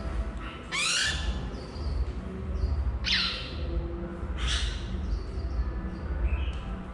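Red-whiskered bulbul caught in a mist net giving harsh squawks while it is handled, three cries in a few seconds, over low rumbling handling noise.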